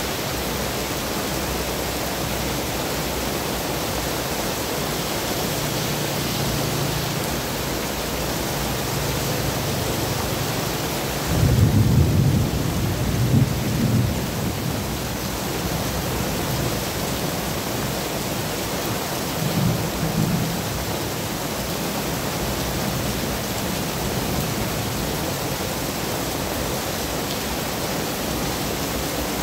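Heavy rain pouring steadily onto a wet street, with traffic passing through the water. Deep rumbles swell up about twelve seconds in and again briefly about twenty seconds in.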